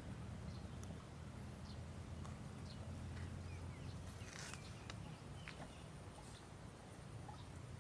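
Water buffalo grazing, tearing and chewing grass, with scattered light clicks and knocks over a steady low rumble.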